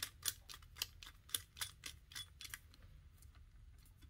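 Screwdriver tightening the terminal screws of a plug: a run of sharp clicks, about three to four a second, that thin out into a few faint ticks after about two and a half seconds.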